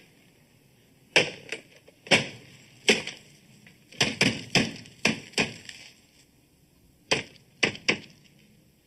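A series of about a dozen sharp knocks or thumps, irregularly spaced and in three clusters, some with a short ringing tail.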